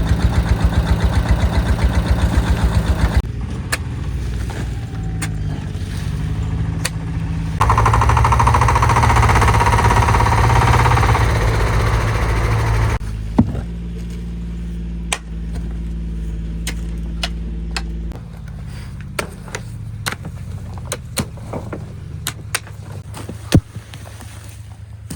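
An engine running steadily, shifting pitch a few seconds in and then working harder and louder for about five seconds before dropping back. It settles lower, with scattered sharp knocks and clicks toward the end.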